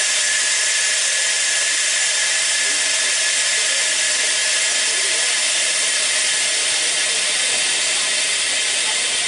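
Express passenger train passing close by: a loud, steady, high-pitched rushing hiss that starts suddenly and holds even.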